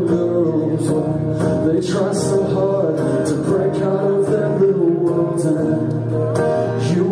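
A solo male singer with an acoustic guitar, singing and playing live through a PA.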